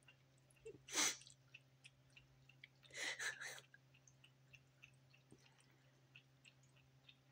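A cat lapping water from an electric pet drinking fountain, its tongue making faint quick ticks over the pump's steady low hum. A sharp splashy burst comes about a second in, and a quick run of three louder ones near the middle.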